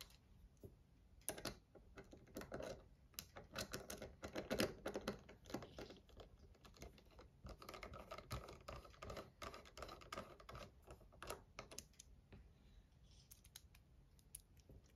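Faint, irregular small clicks and taps as the metal and plastic parts of a Demko AD20 folding knife are handled and fitted together during reassembly.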